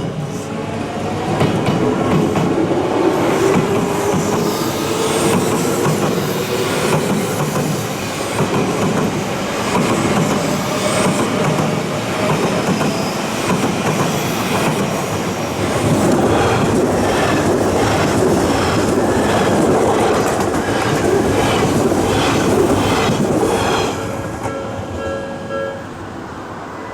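Odakyu electric trains passing a level crossing: first a rising motor whine, then the 50000 series VSE Romancecar going by with a regular clickety-clack of wheels over rail joints. A level-crossing warning bell keeps ringing beneath the train noise and comes through plainly when the train noise drops near the end.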